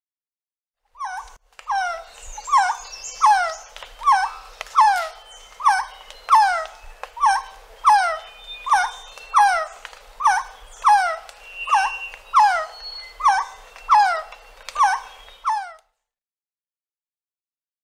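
An animal, dog-like, giving a long run of short high yelps, each falling in pitch, about one and a half a second, that stop shortly before the end.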